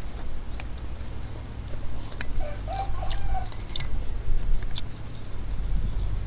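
A person eating noodle soup: mouth chewing noises with scattered small clicks, and a short hum about two and a half seconds in.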